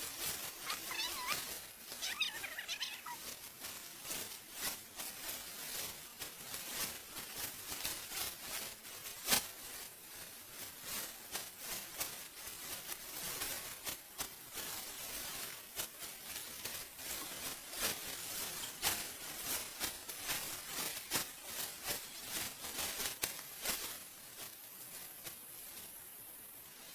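Dry rice stalks rustling and crunching in an uneven stream of crisp clicks, as rice is being harvested by hand. A few short, high gliding animal calls come in the first few seconds.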